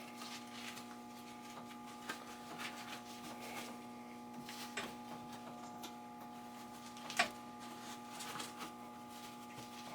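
Faint steady electrical hum with scattered light clicks and handling noises from wiring parts being fitted, and one sharper click about seven seconds in.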